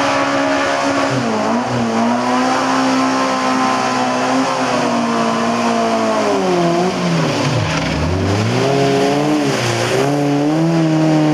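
Race car engine revving hard under the driver's throttle, held high with its pitch dipping sharply and climbing back several times; the deepest drop and recovery comes about eight seconds in.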